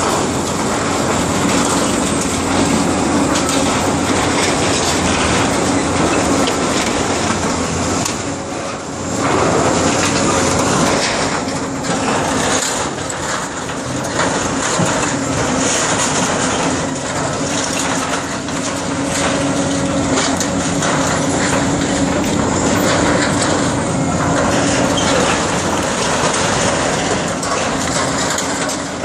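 Caterpillar 328D hydraulic excavator's diesel engine running steadily under load while its grapple tears and crushes corrugated metal siding, timber and insulation, with continual metallic crunching and clattering of debris.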